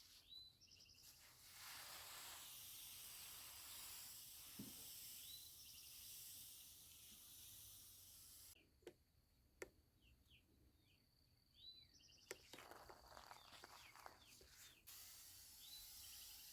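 Faint hiss of a water mist sprayer wetting freshly poured concrete to cure it, in two stretches, the first stopping abruptly partway through, with a few faint bird chirps and a couple of light clicks.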